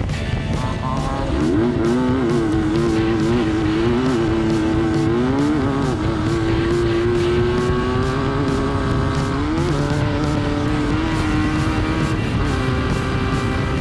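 Class 9 desert race buggy's air-cooled VW engine running hard under load, its pitch rising and falling with the throttle and dropping and climbing again with gear changes, over a dense rumble of noise.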